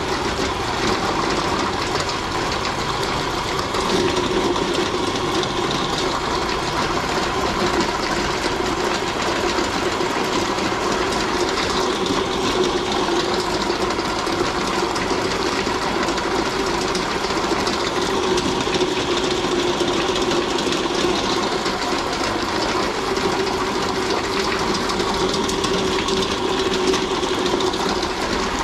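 Motor-driven meat grinder running steadily under load, its auger grinding raw cull broiler chicken and pushing the ground meat out through the plate, with a constant hum.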